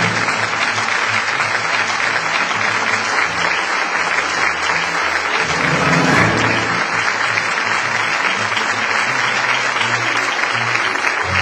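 Audience applauding, dense and steady, with music underneath: a low bass line moving from note to note.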